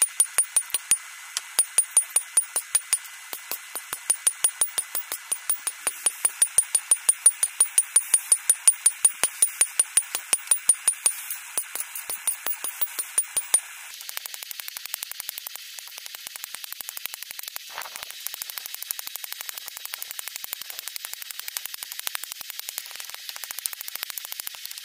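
Hand hammer striking red-hot rebar on a steel-block anvil, forging it flat: a steady rhythm of about four sharp blows a second, each with a high metallic ping. About fourteen seconds in, the blows turn quieter and quicker.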